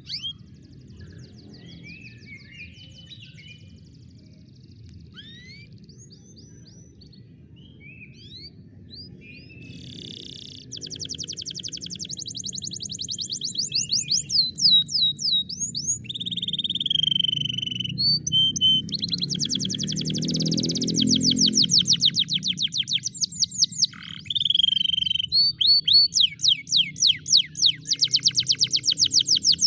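Domestic canary singing: rapid trills of fast repeated high notes with sweeping whistles, growing louder and denser partway through, over a steady backing music track.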